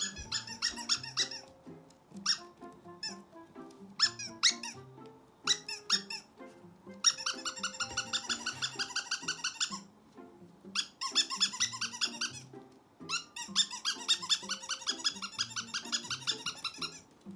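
Rapid high squeaks, like a squeaky dog toy being squeezed over and over at about eight squeaks a second, coming in bursts of two to three seconds with single squeaks between them, over background music.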